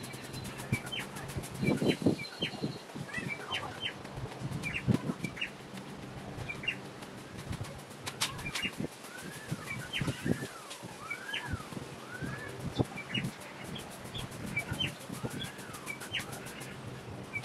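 Birds chirping, with many short repeated chirps and a run of arching calls in the middle. Under them come irregular low knocks and rustling, loudest about two and five seconds in.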